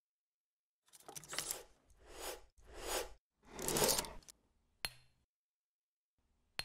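Sound effects for an animated logo: four short whooshing swells in quick succession, then a sharp click with a brief ring, and a second click near the end.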